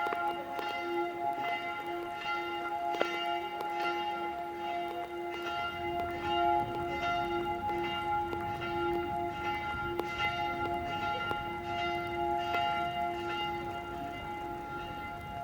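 Church bells of the Predigerkirche in Basel ringing steadily, the bells struck again and again so that their hum never dies away.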